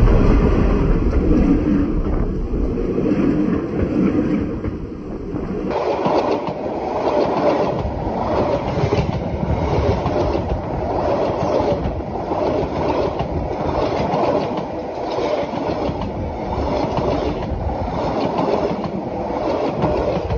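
D19E diesel-electric locomotive and then its carriages rolling directly over, heard from between the rails. At first there is a deep, heavy rumble. From about six seconds in comes a steady, rhythmic clickety-clack of wheels over the rail joints.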